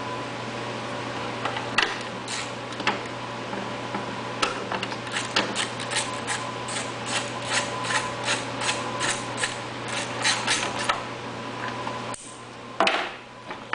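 Light irregular clicks and taps of hand tools and parts being handled, about two or three a second for much of the time, over a steady background hum that drops out suddenly near the end, followed by a brief louder rustle.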